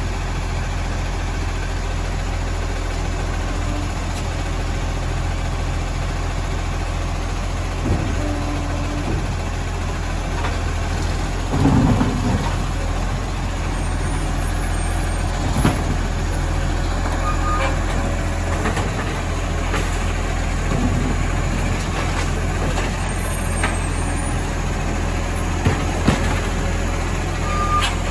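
Iveco side-loader garbage truck's diesel engine running steadily while its automated arm grabs, lifts and tips wheelie bins. Several clunks and clatters of the bins are heard, the loudest about twelve seconds in.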